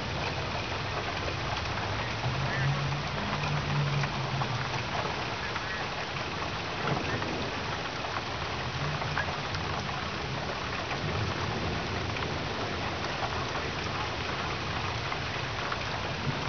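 Steady heavy rain from a severe thunderstorm, an even hiss of water with no break, with faint low sounds swelling twice underneath.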